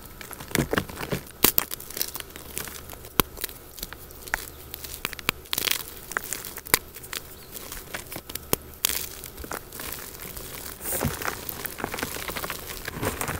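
Blocks of gym chalk crushed and crumbled in bare hands over a steel bowl: an irregular run of dry, crunchy cracks and crackles as the blocks break apart, with softer gritty rustling of powder between them.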